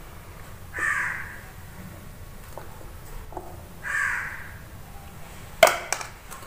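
A crow cawing twice, each call about half a second long and about three seconds apart, followed near the end by a short, sharp clatter.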